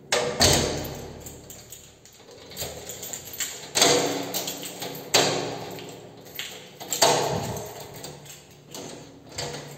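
A door lock being unlocked with a key and the lever handle worked: five loud clunks a second or two apart, each ringing out with an echo, with keys jangling between them.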